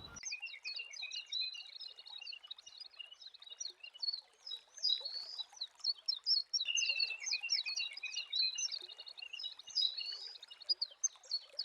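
Small birds chirping and twittering continuously in quick, high, overlapping notes.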